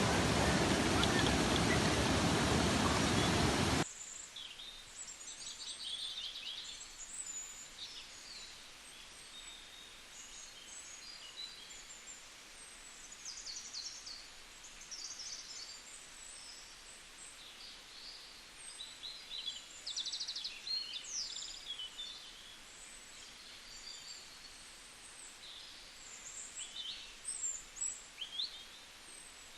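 Many wild birds chirping, trilling and whistling over a faint steady rush. The first few seconds are a loud rushing noise that cuts off suddenly.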